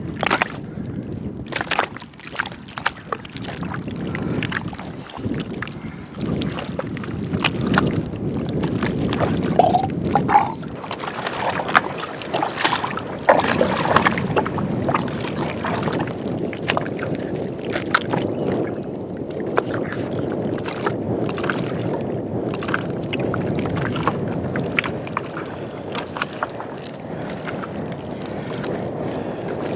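Wet mud squelching and sucking in irregular bursts of small pops as a person crawls and kneels through soft tidal mud, over a steady rumble of wind on the microphone.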